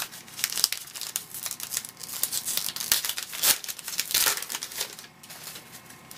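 Crinkling and tearing of a trading-card pack wrapper being torn open by hand: a dense run of sharp crackles that dies down about five seconds in.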